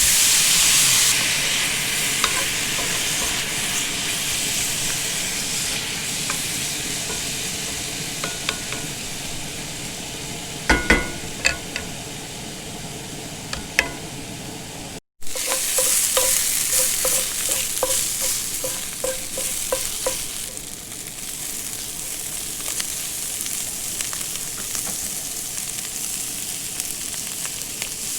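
Breakfast food sizzling in a frying pan, a steady hiss with scattered clicks and scrapes of a cooking utensil being stirred against the pan. The sound drops out for a moment about halfway through, then the sizzling carries on.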